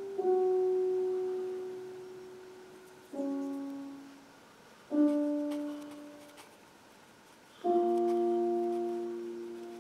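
Slow, sparse piano music: four single notes or soft chords struck a few seconds apart, each left to ring and fade away.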